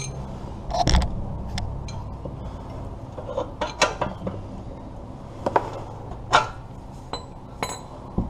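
Sharp metallic clinks and taps of a 7/8 wrench being fitted onto and worked against a crusty, PB Blaster-soaked downstream oxygen sensor on the exhaust pipe, a dozen or so strikes at irregular intervals, as he tries to break the sensor loose.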